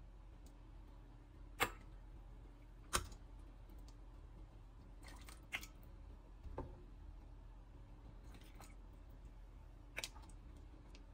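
A stainless steel ladle clinking against a metal pan and a porcelain bowl while soup is ladled out: about five short, sharp clinks spread out over several seconds, over a low steady hum.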